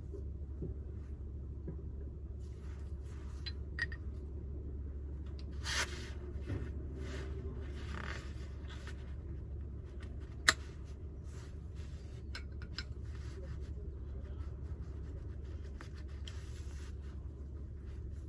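Light metallic clicks and scrapes from the parts of a van's factory jack and its handle being handled and fitted together, with one sharp click about ten seconds in, over a steady low hum.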